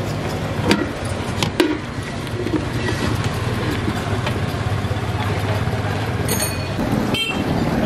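Steady low rumble of street traffic, with a few light clicks in the first two seconds as sliced potatoes are tossed by hand in a steel bowl. A brief high-pitched chirp comes a little after six seconds.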